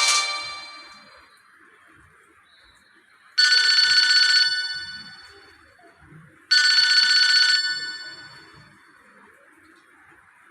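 Mitsubishi D505i flip-phone ringtone: two identical electronic ringing bursts, each about a second long and about three seconds apart, each starting sharply and dying away. The tail of the previous tone fades out in the first second.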